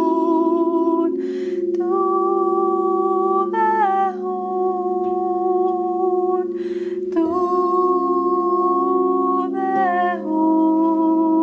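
A woman chants in long held sung notes, pausing for a breath between phrases every two to three seconds, over the steady ring of quartz crystal singing bowls played with a striker.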